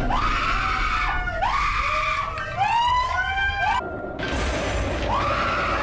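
A woman screaming in fright: repeated long shrieks that rise, hold and fall, some overlapping, broken briefly about four seconds in.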